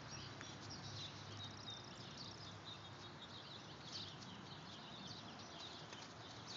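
Faint outdoor background noise with scattered small-bird chirps throughout.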